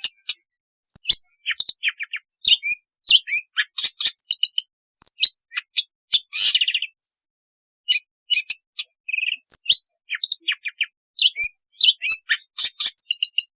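Long-tailed shrike singing a rapid, varied run of short, sharp chirps and harsh, raspy notes, broken by brief pauses.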